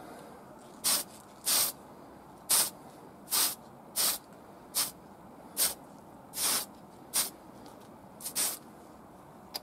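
Aerosol can of Tamiya TS-11 spray lacquer hissing in about eleven short squirts, each under half a second, roughly one every three-quarters of a second.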